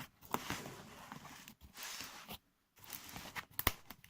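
Handling noise: rustling with scattered sharp clicks, one louder click near the end.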